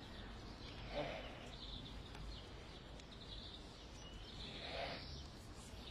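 Faint outdoor background noise with small birds chirping in short repeated notes, and a single soft tap about a second in.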